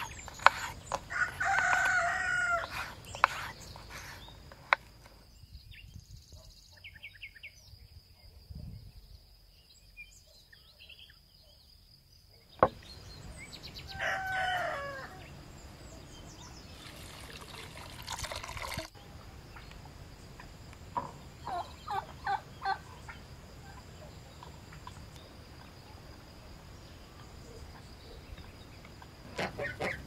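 A rooster crows twice, about a second in and again around fourteen seconds, each a held call that drops at the end. Scattered knife clicks and one sharp knock sound between them, and around seventeen seconds water pours from a clay jug for about two seconds.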